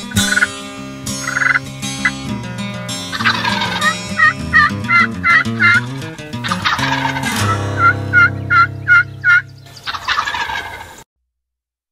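Wild turkeys calling: gobbles, and two runs of about five quick, evenly spaced hen yelps. The sound cuts off suddenly near the end.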